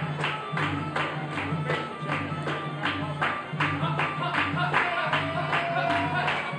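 Traditional Khmer ensemble music played live for a dance: evenly struck percussion notes about three a second over repeating low drum tones, with a melody line that holds one long note about five seconds in.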